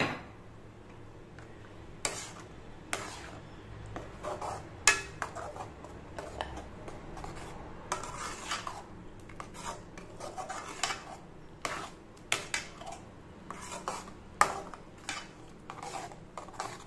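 A long metal spoon scraping and clinking against the sides and bottom of a metal kadai while stirring tomato pickle paste: irregular scrapes and knocks, starting about two seconds in.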